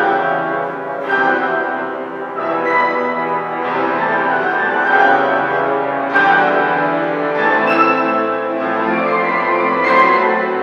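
A small ensemble of young Suzuki-method musicians playing a lively Spanish-style piece, with chords struck afresh about every one to one and a half seconds.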